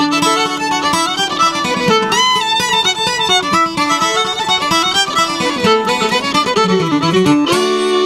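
Fiddle playing a quick bluegrass melody over acoustic guitar backing. It settles onto long held notes near the end.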